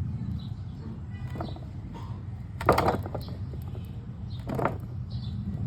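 Two sharp metallic knocks about two seconds apart, with a short ring after each, from metal parts being handled during work on an opened-up differential. A steady low hum runs underneath.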